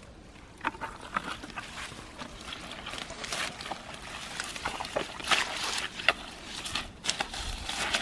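Irregular rustling and splashing of steps through wet, leafy pond plants, growing busier from about three seconds in, with water sloshing and spilling from a carried bucket.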